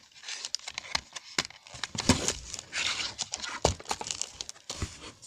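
Small cardboard cologne box being opened and handled as the bottle is taken out: rustling and crinkling of packaging with many short, sharp clicks and knocks.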